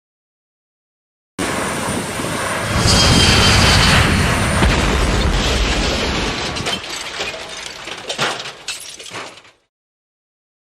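Crash-and-explosion sound effect: it starts suddenly after a moment of silence, swells into a loud rumbling blast, then crackles and fades out well before the end.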